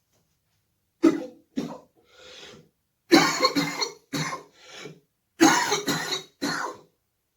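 A man with Covid-19 in a coughing fit: about eight coughs in quick groups over some six seconds, a few of them weaker than the rest.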